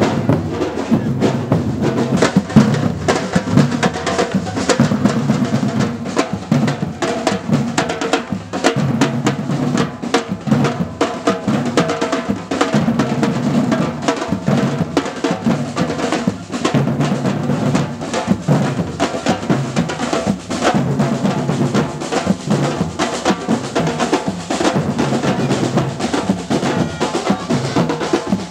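Batucada group playing a continuous drum rhythm on large surdo-style bass drums struck with mallets and sticks.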